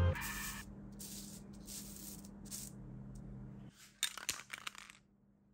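Aerosol spray-paint can being shaken, the mixing ball rattling inside it in quick bursts, loudest about four seconds in, to mix the paint before spraying.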